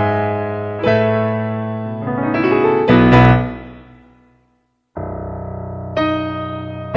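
Gentle relaxation piano music with sustained chords. About three seconds in, an upward run of notes fades out to a brief silence, then the piano comes back in suddenly with new chords.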